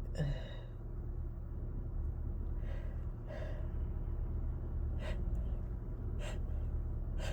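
A person breathing between sneezes while working up the next one: a short voiced catch of breath at the start, two breaths about three seconds in, then short sharp intakes of breath about five, six and seven seconds in. A low steady hum runs underneath.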